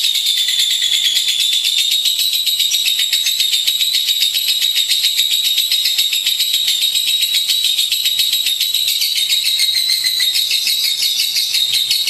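Lovebird giving a long, unbroken, high-pitched chattering trill (the 'ngekek'), made of very rapid notes.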